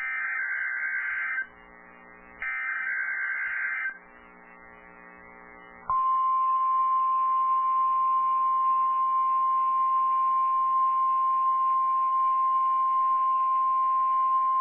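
NOAA Weather Radio emergency alert: two bursts of the buzzy, screechy SAME digital header about a second apart, then the steady 1050 Hz warning alarm tone starting about six seconds in and holding one unbroken pitch, which signals that a warning is about to be read.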